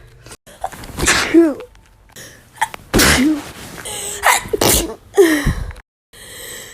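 Several loud human sneezes in quick succession, each a sharp blast with a short voiced cry that drops in pitch, separated by abrupt cuts.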